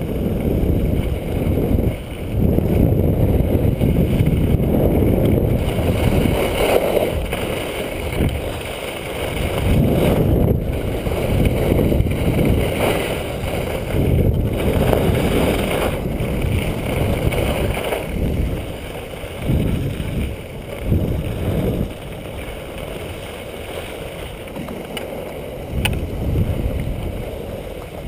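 Wind rushing over an action camera's microphone during a downhill ski run, mixed with skis scraping and hissing on packed snow; the rushing eases in the last few seconds as the skier slows.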